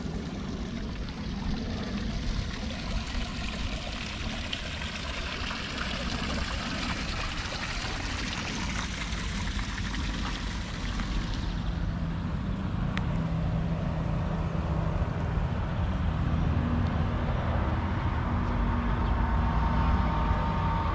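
A moving vehicle's engine running steadily under a rushing noise of wind or water. About halfway through the high hiss falls away and the low engine hum comes forward, growing slightly louder.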